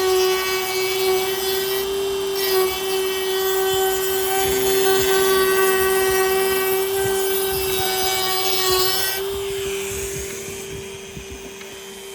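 Small power tool with a steady high whine grinding into a carbon-fibre hood to carve out a latch opening. About nine seconds in, the cutting noise drops away and the tool runs on more quietly.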